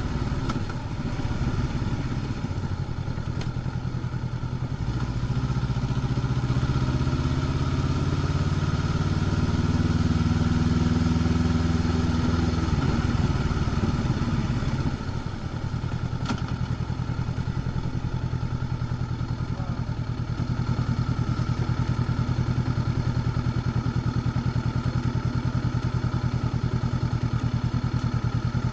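Honda CB500X's 471 cc parallel-twin engine with its stock exhaust, heard from the rider's seat under way. It pulls up steadily in pitch for about ten seconds, drops back as the throttle eases a little before halfway, then runs steady and slightly louder through the last third.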